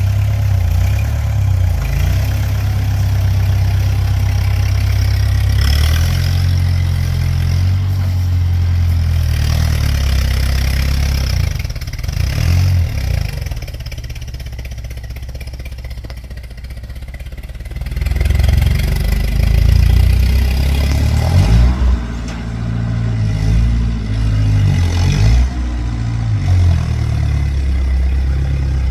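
Engine of a tractor about 75 years old running, its speed rising and falling. About halfway through it runs quieter for a few seconds, then picks up again.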